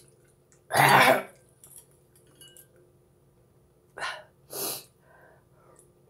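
A woman coughs once, loudly, about a second in. About three seconds later come two shorter breathy sounds in quick succession.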